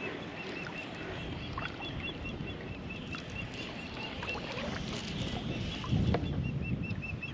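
Wind and water noise out on open water, with a bird calling in a rapid series of short, evenly spaced chirps, about three or four a second, which stop for a while and start again near the end. A louder rush of noise comes about six seconds in.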